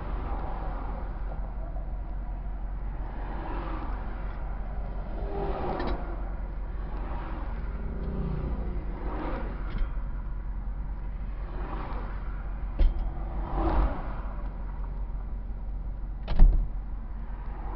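Freeway traffic passing close by, a stream of swelling whooshes over a constant low rumble. Two sharp thumps come late on, the second and louder one near the end.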